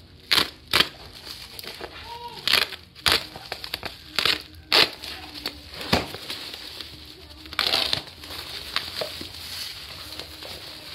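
Black plastic mailer bag crinkling and rustling as it is cut with scissors and torn off a cardboard box, in irregular loud bursts, the sharpest in the first second and again around four to five seconds in.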